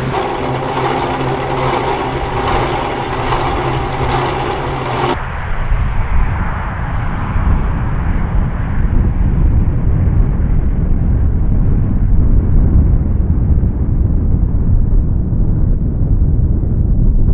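Four Allison T56 turboprop engines of a C-130H running: first a steady drone with several held engine and propeller tones, then, after an abrupt change about five seconds in, a deep rumble at takeoff power whose higher sound slowly fades as the aircraft rolls away down the runway.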